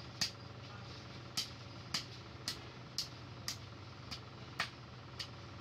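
Hand hammer striking steel on an anvil: nine sharp, ringing blows at roughly two a second, a couple of them lighter than the rest.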